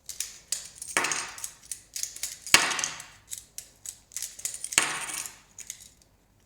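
Sharp clicks and metallic clatters as a fidget spinner's bearings are forced out with a hand bearing extractor and set down on a hard surface, with three louder clatters, the loudest about two and a half seconds in.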